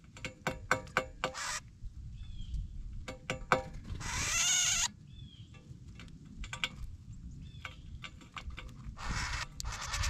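Northern cardinals and sparrows feeding at a metal seed pan: quick runs of sharp, slightly ringing ticks as beaks peck seed against the pan, a few short high chip calls, and a loud rush of wing noise about four seconds in and again near the end as birds take off or land close by.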